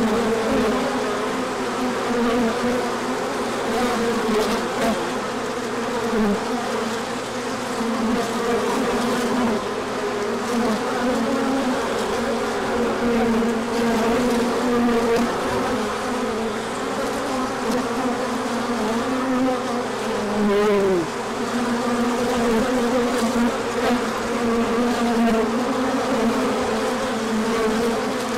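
Honey bees buzzing in large numbers at a hive, a dense, steady hum. About two-thirds of the way through, one bee flies close past the microphone and its buzz drops in pitch.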